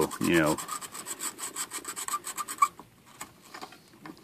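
Fiberglass scratch brush scrubbing corrosion off the copper traces of a CB radio's circuit board, in quick rhythmic rasping strokes that grow fainter about two and a half seconds in. The corrosion is damage from leaking electrolytic capacitors.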